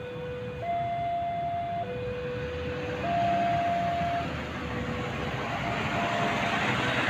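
Level-crossing warning alarm sounding a repeating high-low two-tone signal, each tone held about a second and fading out near the end. Underneath, the rumble of the KAI 'Kereta Inspeksi 3' inspection railcar grows louder as it rolls past.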